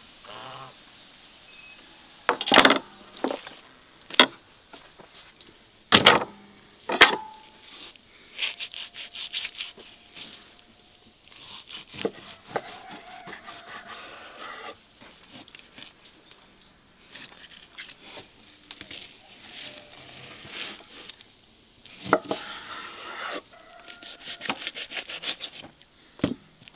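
A knife cutting raw beef on a wooden cutting board: quick rasping slicing strokes, with several sharp knocks against the board.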